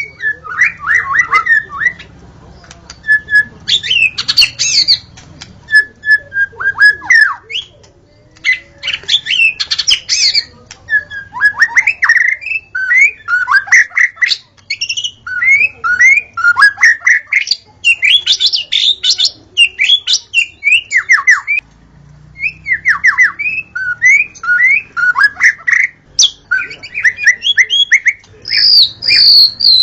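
White-rumped shama (murai batu) singing: loud, rapid phrases of quick downward-sweeping whistled notes in varied bursts, with brief pauses between phrases.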